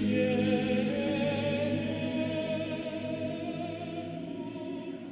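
Background music: a choir of voices holding a sustained chord, fading slowly.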